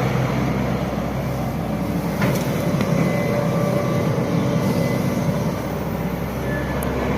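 Hitachi Zaxis 110 long-reach excavator's diesel engine running steadily, with a light click a little over two seconds in.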